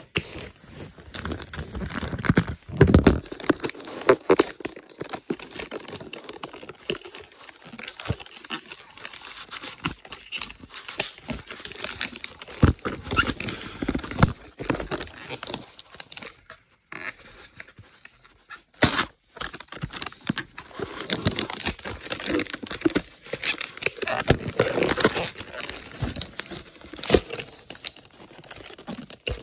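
A mailer envelope being torn open and crinkled by hand: irregular tearing and rustling of the wrapping, with a brief pause a little past halfway.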